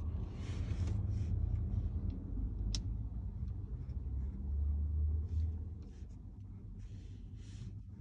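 Car engine idling, a low steady rumble heard from inside the cabin, with a single sharp click about three seconds in.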